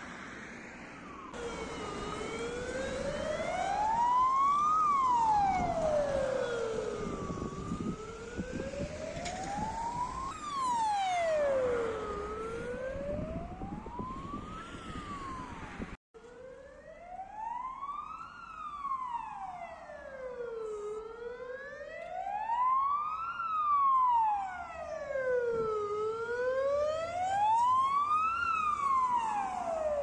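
Ambulance sirens on the wail setting: a single tone sliding slowly up and down, about once every five seconds. The first half is a Mercedes Sprinter Classic ambulance's siren with road noise under it. After an abrupt cut about halfway, a Ford Transit resuscitation ambulance's siren sounds alone, wailing at the same slow pace.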